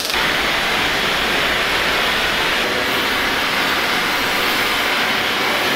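Steady hiss of metalwork on steel: arc welding, then an oxy-fuel cutting torch's flame cutting a steel bar, the sound changing slightly about three seconds in.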